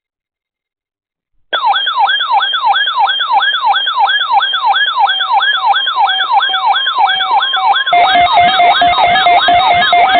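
Electronic emergency-alert attention tone, siren-like, starting suddenly about a second and a half in and sweeping rapidly up and down about twice a second. About 8 s in a steady, lower tone joins, thickening the sound.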